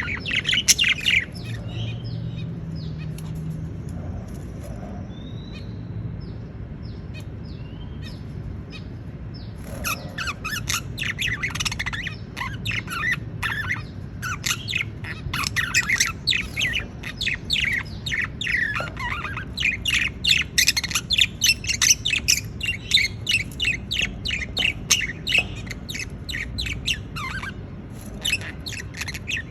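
Budgerigars chattering with rapid short chirps and squawks. The calling thins to a few scattered chirps for several seconds, then turns dense again about ten seconds in.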